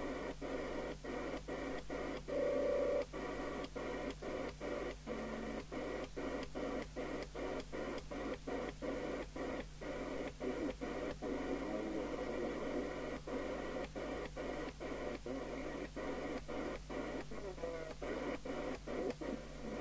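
Cheiza CB701 FM CB radio receiving empty channels through its internal speaker: a steady hiss, broken by a short gap two or three times a second as the channel knob steps from channel to channel. A brief tone sounds about two and a half seconds in.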